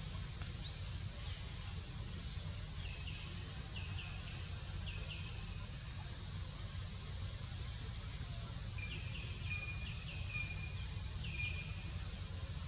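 Outdoor ambience: a steady high-pitched insect drone over a low rumble, with a bird giving short repeated chirps in two runs, a few seconds in and again later on.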